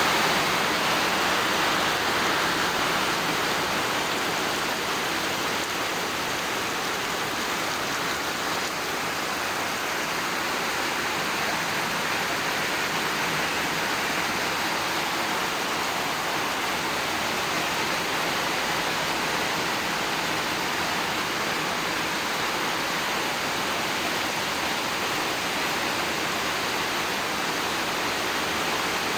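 Heavy rain pouring down steadily in a strong storm, a dense even rush of water, slightly louder in the first couple of seconds.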